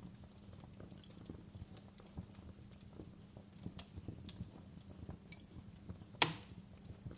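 Wood fire crackling: irregular small pops and snaps over a low steady hum, with one loud sharp pop about six seconds in.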